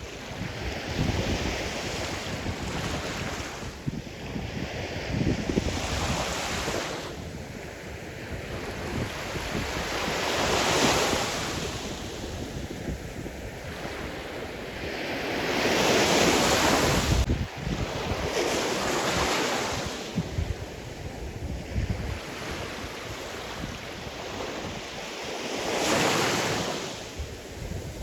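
Sea surf: waves breaking and washing in, in slow surges every few seconds. The loudest surge comes about 16 to 17 seconds in.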